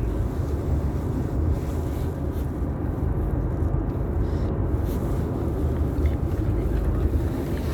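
Steady low rumble of a car driving, heard from inside the cabin: road and engine noise at an even level.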